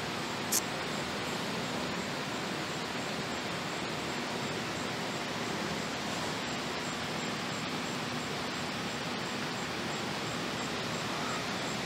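Steady, even outdoor background hiss with no distinct source, and one short click about half a second in.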